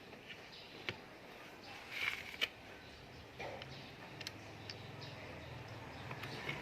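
Faint, scattered clicks and small taps of fishing-reel parts being handled during a repair, with a couple of sharper ones about two seconds in. A low hum comes up about halfway through and grows.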